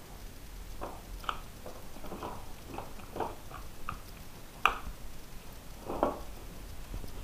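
Irregular rustles, clicks and small knocks from tools and parts being handled by hand on a plastic bag, about ten in all, with one sharper click about two-thirds in.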